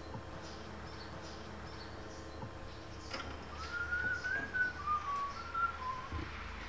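A man whistling a wavering tune with his lips pursed, starting about three seconds in, the notes gliding up and down.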